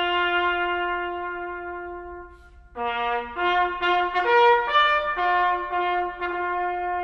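A solo bugle call on brass. A long held note fades away, and after a brief pause a quicker phrase of several notes follows, the kind of call sounded at a remembrance ceremony.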